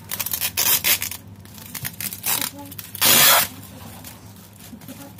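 Packing tape being peeled and ripped off an inflatable air-column plastic wrap, with the plastic rustling and rubbing under the hands. There are several short rips, and the loudest, about half a second long, comes about three seconds in.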